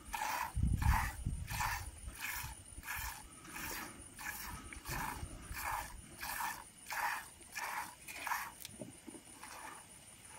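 Goat being milked by hand: regular squirts of milk hitting a pail, about three every two seconds, stopping about eight and a half seconds in. A low rumble sounds near the start.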